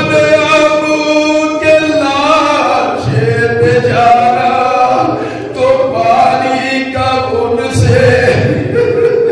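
A man chanting a noha, a Shia Muslim lament for the martyrs of Karbala, unaccompanied, in long held melodic lines that rise and fall.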